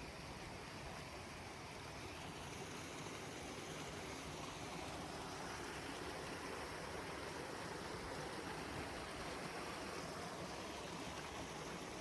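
Small creek or trailside waterfall rushing steadily.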